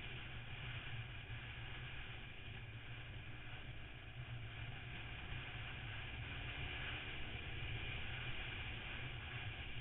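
Motorcycle riding heard from an on-bike camera: a steady rush of wind over the microphone with the engine running underneath, its note rising and falling slightly as the throttle changes.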